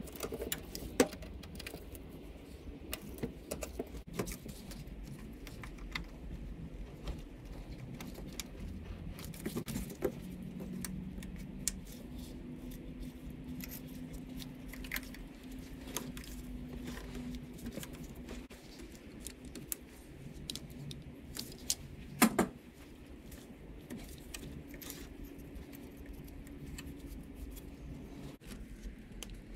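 Small clicks, rattles and knocks of hand work on the throttle body of a Honda CR-V engine, as wiring-harness connectors and small coolant hoses are handled and fitted. The sharpest clicks come about a second in and again about 22 seconds in.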